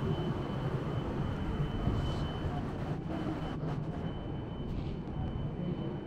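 Steady low mechanical rumble of an urban or building background, with a thin steady high whine that drops out partway through and comes back near the end.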